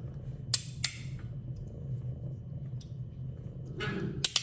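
Copper Magnus Ridge fidget slider being slid back and forth, snapping sharply between its two click positions: two clicks in quick succession, then two more near the end, over a steady low hum.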